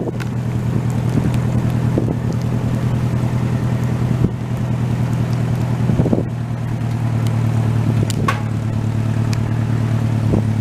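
Engine running at a steady speed while hauling logs, with a few short knocks and rattles over it.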